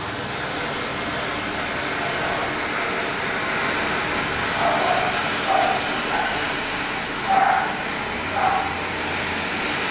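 Thousands of match heads flaring as the fire spreads across them, a steady hiss.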